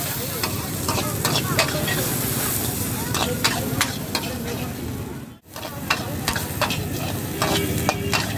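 Shredded cabbage, onion and capsicum sizzling in a wok over a high flame while a long metal ladle scrapes and clanks against the pan in quick, irregular strokes. The sound cuts out for a moment about five seconds in.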